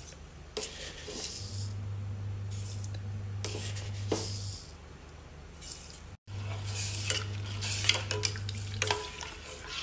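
Steel ladle scraping and clinking against a steel pot of milk as sugar is stirred in, in several bouts, over a steady low hum that stops and starts.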